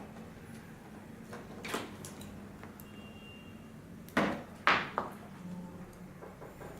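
Handling noise on a work surface: a few short knocks and clunks, the two loudest close together about four seconds in.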